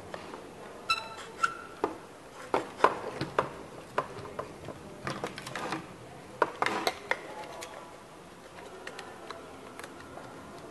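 Clicks and knocks of thin laser-cut wooden chassis panels being handled and pressed together, a dozen or so separate taps, dying down about three-quarters of the way through.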